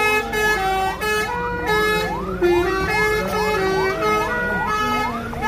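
Bus 'telolet' multi-tone horn playing a tune of stepped notes, overlaid by a siren-like rising whoop that repeats about three times a second.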